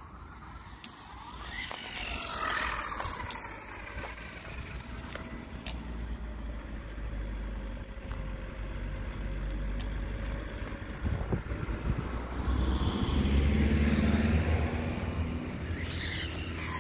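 WLtoys A959-B 1/18-scale electric RC car driving: its motor whine rises and falls in pitch with the throttle over tyre and drivetrain noise on a rough, uneven surface, loudest about three-quarters of the way through.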